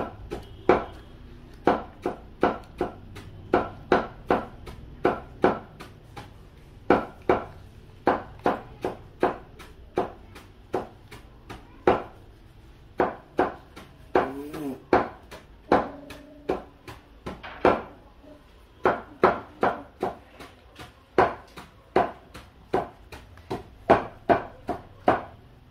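Rapid, evenly repeated sharp knocks on a hard surface, about three a second, in runs broken by short pauses.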